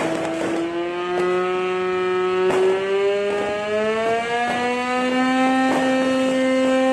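Hand-cranked manual siren wailing, its pitch rising slowly and steadily as it winds up.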